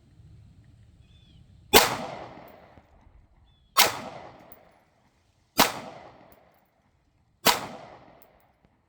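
Four pistol shots from a Sig Sauer P320, about two seconds apart, each followed by an echo that dies away over about a second. The pistol is firing and cycling normally after being rinsed clean of mud.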